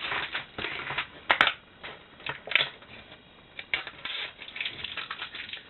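A plastic DVD case and its packaging being handled: rustling and crinkling with scattered clicks and taps. The sharpest click comes about a second and a half in, with another near the halfway point.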